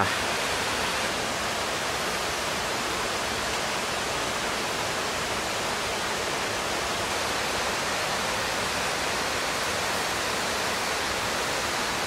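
Hard clams sizzling in their own juice on a charcoal grill's wire grate: a steady, even hiss.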